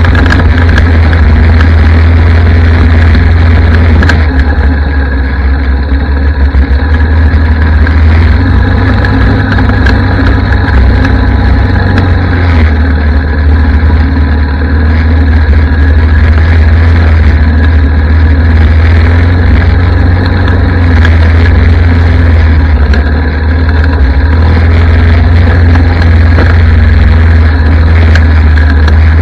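Yamaha ATV's single-cylinder four-stroke engine running loud and close under riding throttle along a trail, a steady low drone with slight easing and picking up of the throttle.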